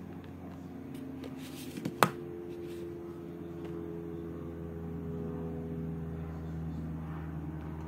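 A Samsung ringtone played on a ZTE Z222 phone: slow, sustained synthesized chord tones that change to a new chord about two seconds in. A sharp click comes just after the chord change.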